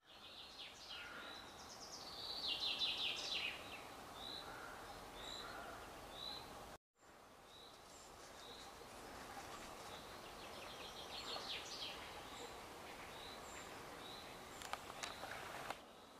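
Small birds singing: quick rattling trills and a repeated short high note, over a soft outdoor background. The sound drops out completely for a moment about seven seconds in, and a few light clicks come near the end.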